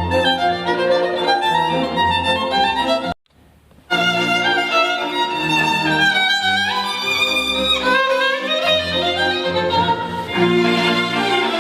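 Music with a prominent violin over a pulsing bass line, played on a portable Bluetooth speaker; it cuts out for under a second about three seconds in, then carries on.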